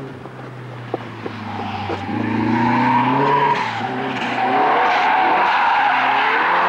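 Turbocharged Mercedes 190E driven hard through a sliding corner. The engine revs up and down while the tyres squeal from about two seconds in, growing louder.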